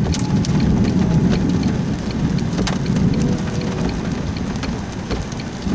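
Rain and wind around a car: a loud low rumble with scattered sharp ticks of drops striking.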